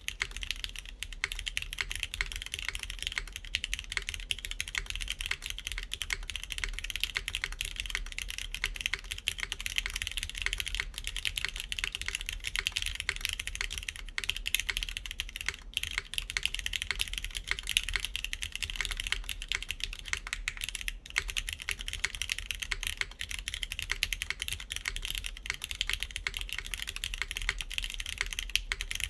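Continuous typing on a KBDfans Tofu60 3.0 mechanical keyboard in PCB gasket mount, with clicky TypePlus NK Classic Blue switches, GMK keycaps and a PEI plate: a dense, unbroken stream of sharp key clicks.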